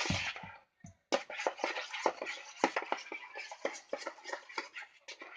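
A stirring tool scraping and knocking around a bowl as shampoo and salt are stirred together for slime, in quick irregular strokes with a short pause about a second in.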